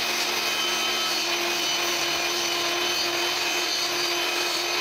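Table saw running steadily at full speed, a constant machine whine with one held tone, as its spinning blade is raised slowly up through the sled's 2 cm MDF base, cutting its own slot.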